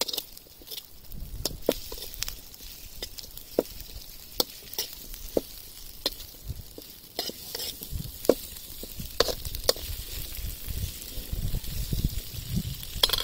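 A metal spoon stirring and scraping dry fish, onions and curry leaves in a metal pan over a wood fire, with irregular clicks of the spoon against the pan over a steady frying sizzle.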